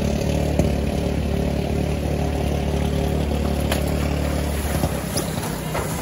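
An engine idling steadily, a low hum that holds one pitch and fades out about five seconds in.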